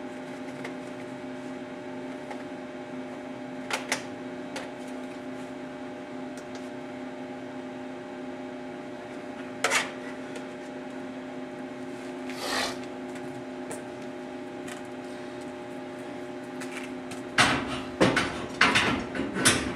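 Steady electrical hum, several even tones held level throughout, typical of an AC arc welder's transformer switched on and idling. A few light clicks stand out over it, and near the end a run of knocks and clanks from metal being handled.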